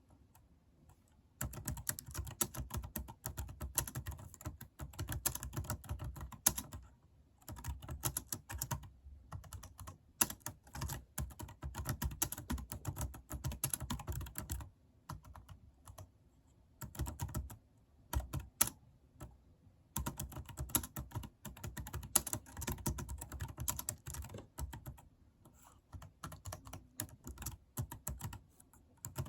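Computer keyboard being typed on: fast, dense key clicks in runs of a few seconds broken by short pauses.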